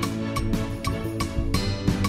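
Background film-score music: sustained chords over a steady, evenly spaced percussive beat.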